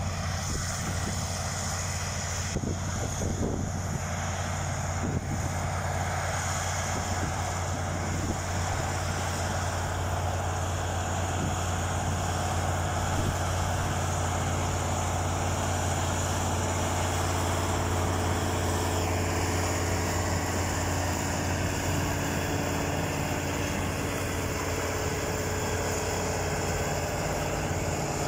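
Diesel engine of an ACO articulated four-wheel-drive tractor running steadily under load as it pulls a planter, a constant low engine hum that holds the same pitch throughout.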